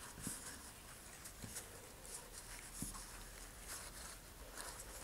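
Faint scraping and scratching with a few light taps: a wooden dowel working in the slots of a model rocket's ejection baffle, clearing glue out of them.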